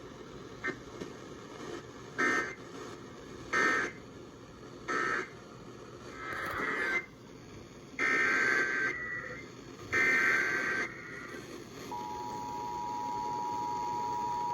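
Emergency Alert System header: a run of short, raspy digital data bursts repeated several times, then the steady two-tone EAS attention signal starting about twelve seconds in. Together they mark the start of a new alert, here a flash flood warning.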